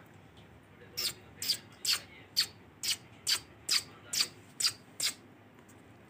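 Indian ringneck parakeet giving a run of about ten short, shrill calls, roughly two a second, starting about a second in and stopping near the five-second mark.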